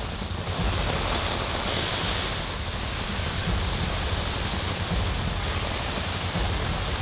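Heavy rain falling on a road: a steady hiss with a low rumble underneath, growing louder about half a second in.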